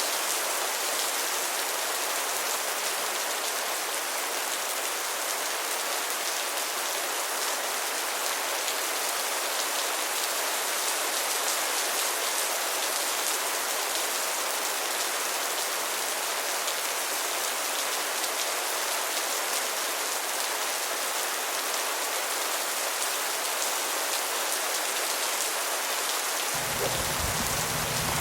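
Steady rain falling, an even hiss of many drops. A low rumble comes in near the end.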